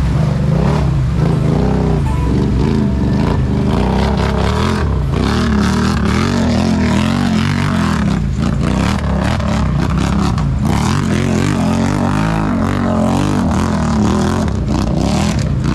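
ATV engine running hard and revving, its pitch rising and falling repeatedly over a steady low rumble.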